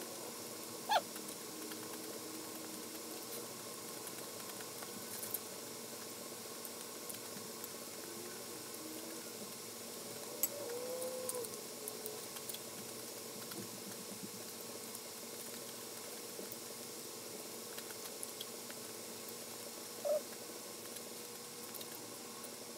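Soft chewing and slurping of pad thai rice noodles eaten with chopsticks, over a faint steady hum. A few short, louder mouth sounds stand out: about a second in, about halfway through, and near the end.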